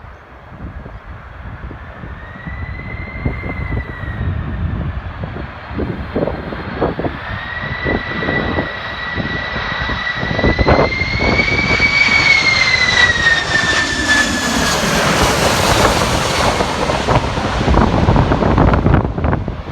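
Jet airliner approaching and passing close by: a high engine whine grows louder and wavers slightly in pitch, then gives way to a broad jet rush at its loudest in the second half. Strong wind buffets the microphone throughout.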